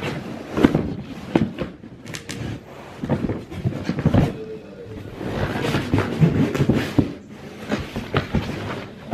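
Paper and cardboard rustling, crinkling and knocking in irregular bursts as a toddler digs through a cardboard box and pulls out paper packing and card pieces.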